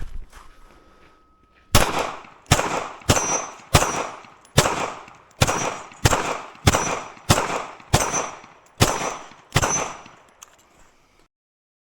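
A string of about a dozen pistol-calibre gunshots, fired in quick succession about half a second to a second apart, with a high metallic ring after several of them, as from steel targets being hit. A faint steady tone comes before the first shot.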